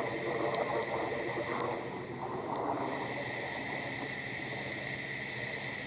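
Spooky night ambience: a rumbling noise that eases off about three seconds in, over a steady, high-pitched chorus of night insects.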